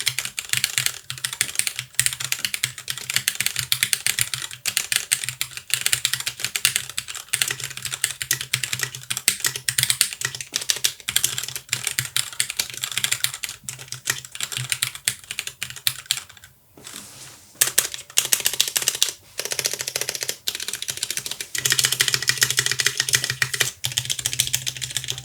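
Typing test on an Akko 3087 keyboard with stock Cherry MX Red linear switches and PBT pudding keycaps: a fast, dense run of key clacks with a short pause about two-thirds of the way through. The reviewer finds the switches full of spring ping.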